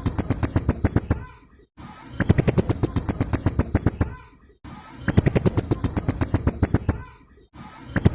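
Blue-crowned hanging parrot (serindit) giving its rapid-fire 'tembakan' call: a sharp, high note repeated about ten times a second for roughly two seconds, the burst coming again about every three seconds.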